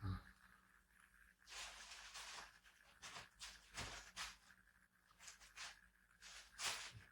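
Faint rustling of bedding as a person shifts in bed: a soft low thump at the start, then several short hissy rustles spaced about a second apart.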